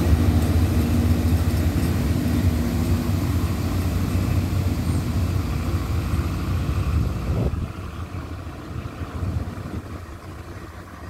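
Diesel multiple-unit express train pulling away, its underfloor diesel engines running with a loud, low hum. The sound drops sharply about seven and a half seconds in, then fades as the train draws off.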